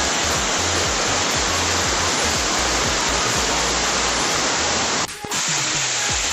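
Steady rush of a waterfall, loud and even, with a brief dip in level about five seconds in.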